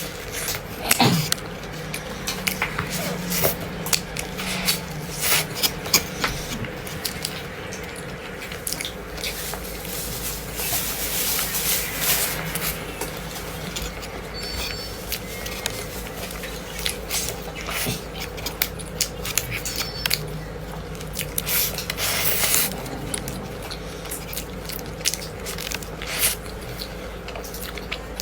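Close-up eating: repeated biting and chewing with many short clicks, crackles and wet squishing sounds.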